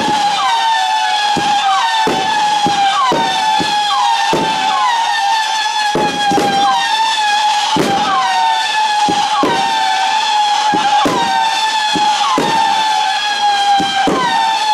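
TROPIC TB166 'Scream' 25-shot firework battery firing whistling shots, one to two a second. Each launch is a sharp thump followed by a whistle that dips briefly in pitch and then holds. The whistles overlap, so the whistling never stops.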